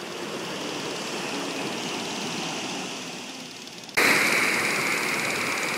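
Steady rushing noise of ocean surf at the beach, which jumps suddenly louder about four seconds in.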